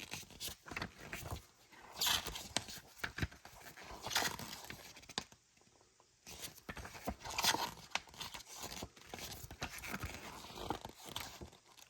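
Handling of paper and card packaging: soft rustles, brushing and scattered light taps as a printed booklet and box contents are moved about.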